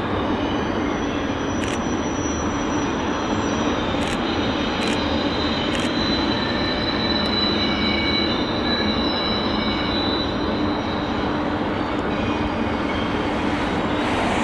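Long Canadian Pacific freight train rolling steadily past, a continuous heavy rumble of wheels on rail. Thin high wheel-squeal tones come and go over it, with a few sharp clicks.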